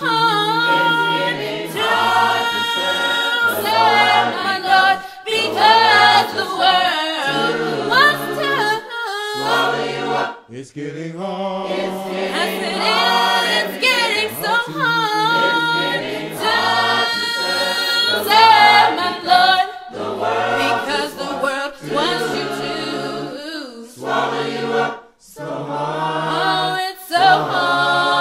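Church choir singing a gospel song a cappella, several voices in harmony, in sung phrases broken by short breath pauses.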